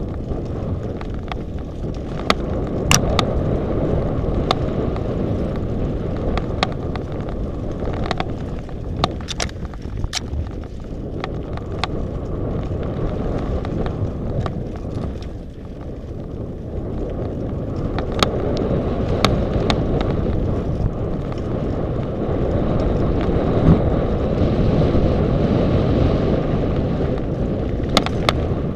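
Mountain bike riding fast over a rough, rocky dirt trail: steady wind rumble on the microphone and tyre noise, broken by frequent sharp rattles and clacks from the bike jolting over stones and roots.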